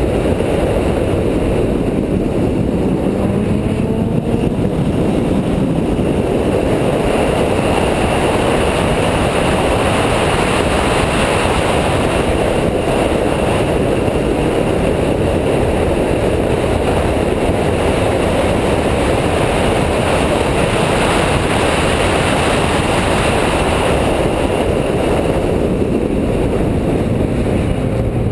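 Car engine pulling hard on a race circuit, heard from a camera mounted outside the car, mixed with heavy wind and road noise. The engine note climbs in the first few seconds and again near the end.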